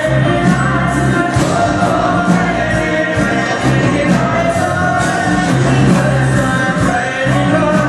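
Folk-rock band playing live: a dhol drum beating a steady rhythm over electric archtop guitar, double bass and drum kit.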